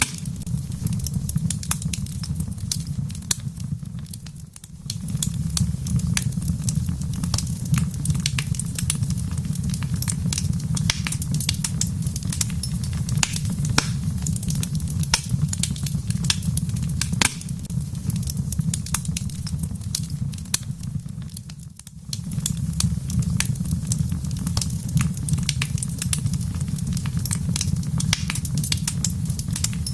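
Wood fire crackling in a fireplace: irregular sharp pops and snaps over a steady low rumble, which dips briefly twice.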